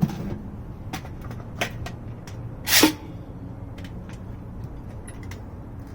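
Caulk guns being handled: a few light clicks and knocks, then one short rasping scrape a little under three seconds in.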